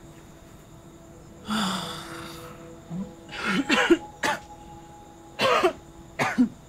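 A woman crying: a sharp breathy gasp about a second and a half in, then several short, broken sobs. Faint held music tones sound underneath.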